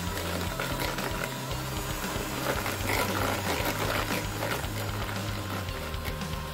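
Electric hand mixer running, its beaters creaming butter and sugar in a plastic bowl, with background music underneath.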